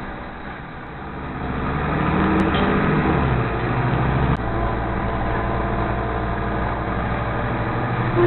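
Nova LFS city bus's diesel engine heard from inside the cabin, pulling away with its pitch rising, then a sudden shift about four seconds in, after which it runs steadily at cruising speed.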